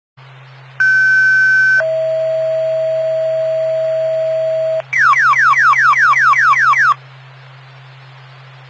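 Fire dispatch tone-out heard over a radio scanner. A high tone lasts about a second, then a lower tone holds for about three seconds (a two-tone page), then a quick run of about ten falling chirps over two seconds, all over steady radio hiss and a low hum.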